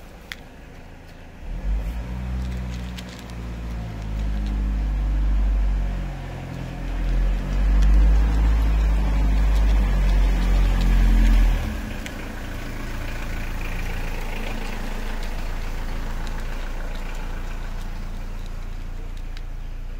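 Motor vehicle engine running close by, loud and low with changing pitch from a couple of seconds in until about twelve seconds in, then settling to a steadier, quieter hum.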